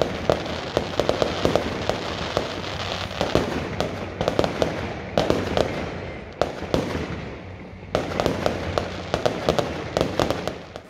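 Aerial fireworks going off: rapid sharp cracks and bangs in several volleys, with brief lulls between them.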